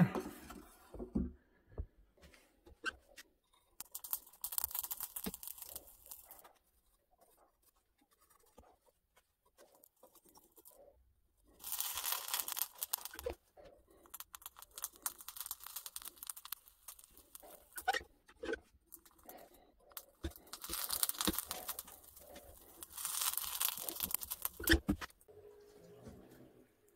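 Copper motor-winding wire melting down in a glowing crucible inside a small metal-melting furnace: several stretches of crackling, hissing noise with scattered clicks and scrapes of metal, and short quiet gaps between.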